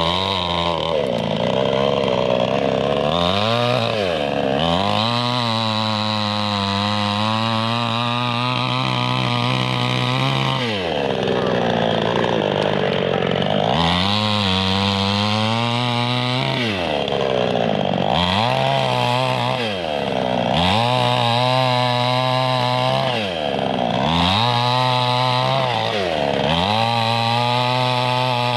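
Chainsaw engine revving hard over and over: it climbs to high speed, holds there for a few seconds, then drops back before revving up again.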